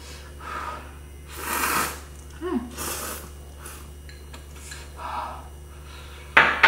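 A person eating spicy seafood instant noodles: several slurps, with chopsticks clinking against a small bowl. A sharp, louder sound comes near the end.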